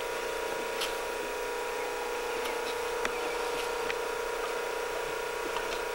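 A steady hum at one fixed pitch, with an even hiss, and a few faint clicks or knocks, one about a second in and another about three seconds in.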